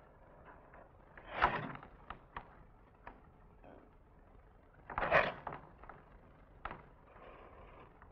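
Movement noises from a barefoot mime performer on a stage: two loud, short rushing noises, about a second and a half in and again about five seconds in, among scattered light taps and creaks.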